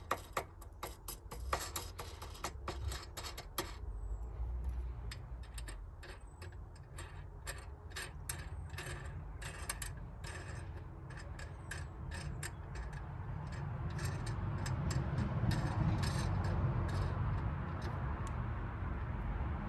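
Irregular small metal clicks and taps of a universal battery clamp's hooks, rod and wing nut being handled and tightened by hand. A steady rushing noise builds up in the second half.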